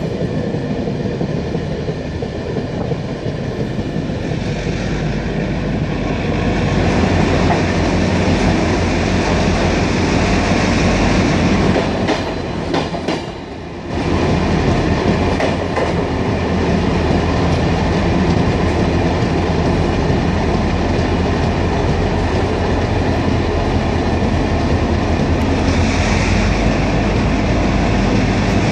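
Passenger train running on the line, heard from an open carriage window: wheels clattering over the rail joints under a steady low rumble. The sound grows louder about seven seconds in, as the train runs into a short snow tunnel.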